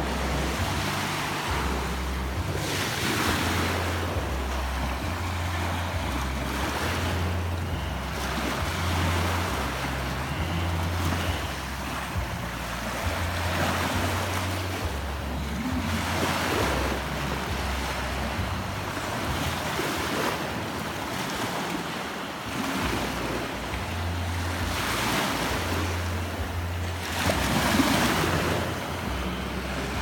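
Small sea waves breaking and washing up onto a sandy beach, swelling every few seconds, with a low rumble of wind on the microphone.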